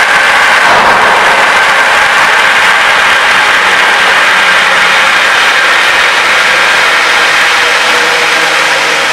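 Water forced through a partly open VAG EKN butterfly valve, cavitating as the handwheel is turned: a loud, steady rushing hiss of collapsing bubbles that eases slightly near the end.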